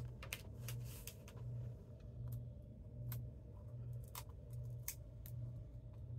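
Light clicks and taps of cardstock pieces and a foam adhesive dimensional being handled and pressed down on a craft mat, over a low hum that swells and fades in a steady rhythm.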